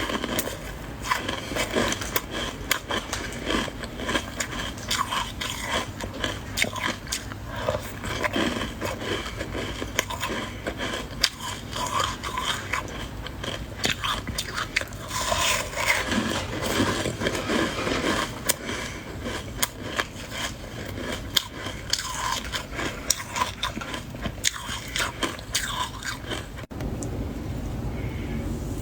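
Close-miked biting and chewing of soft white ice, such as freezer frost or shaved ice: a dense run of irregular crunches and crackles. The crunching stops a little before the end, leaving only a low steady hiss.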